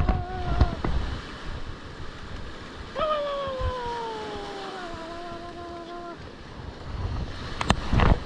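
Ocean surf washing on the beach, with wind buffeting the microphone. About three seconds in, a single long pitched note slides down and holds for about three seconds. Near the end come a few loud bumps.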